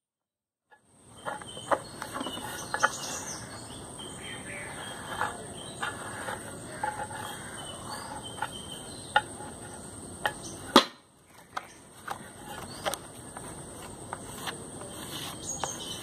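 Scattered light taps, clicks and scrapes of hands working a grooved tile against a dry arecanut leaf sheath, with one sharper click about two-thirds of the way through. A thin steady high-pitched whine runs underneath.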